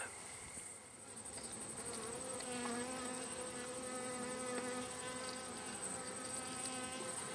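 Honeybees buzzing around their wild hive, with one bee's steady hum close by from about two seconds in.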